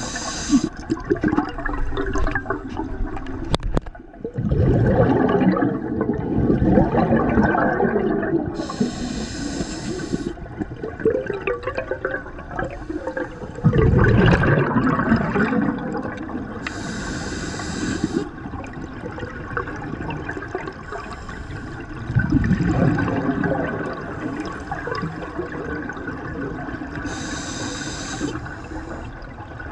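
Scuba diver breathing through a regulator underwater. Four short hisses of inhalation come about eight to nine seconds apart, each followed a few seconds later by the louder, longer rumble of exhaled bubbles.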